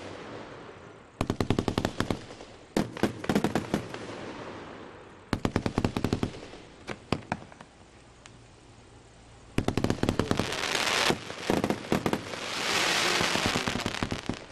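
A 100-shot fireworks cake firing in rapid volleys of sharp bangs, several a second, broken by short lulls. Near the end comes a drawn-out hissing rush.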